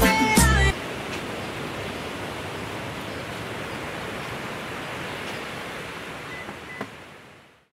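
Background music cuts off, leaving a steady, even hiss of outdoor background noise. A faint click comes near the end, and then the sound fades out.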